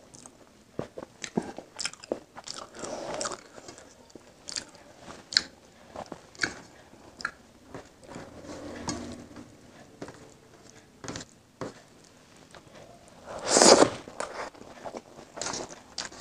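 Close-miked chewing and wet mouth sounds of a person eating rice and egg curry by hand: many short, sharp clicks and smacks, with one louder, longer burst about three-quarters of the way through.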